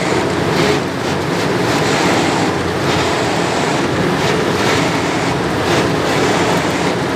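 A machine running with a loud, steady rushing noise.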